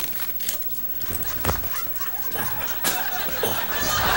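A few sharp clacks as nunchucks are swung and dropped, then people laughing, growing louder near the end.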